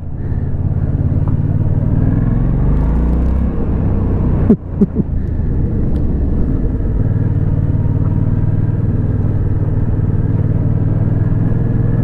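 Yamaha FZ-07's parallel-twin engine running as the motorcycle is ridden along gravel, its pitch shifting a couple of seconds in. There is a short break in the engine note about four and a half seconds in, then it holds steady.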